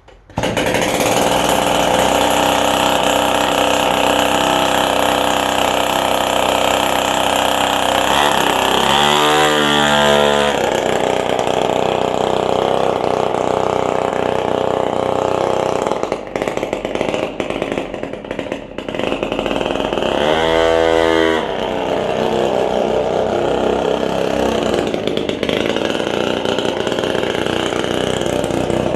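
A 47cc two-stroke scooter engine catches on starter fluid and runs. It is revved up and back down twice, about 9 and 21 seconds in, and stumbles unevenly for a few seconds between the revs.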